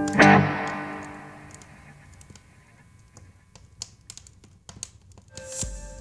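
Guitar music ending on one loud final strum that rings and fades away over about two seconds, followed by scattered faint clicks. Near the end a low thump and a new soft held note begin.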